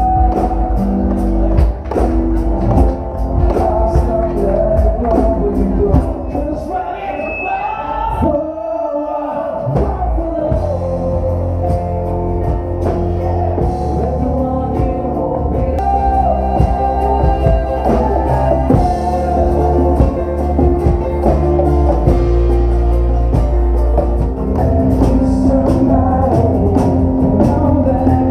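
Live band playing a pop-rock song: singing over acoustic guitar, bass and percussion, with the bass and drums dropping out for a moment about a third of the way in.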